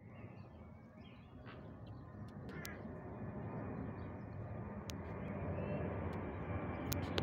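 Jet engines of a Boeing 737-800 airliner (CFM56-7B turbofans) heard as a distant rumbling roar that grows steadily louder as the aircraft approaches. A few brief bird chirps sound over it.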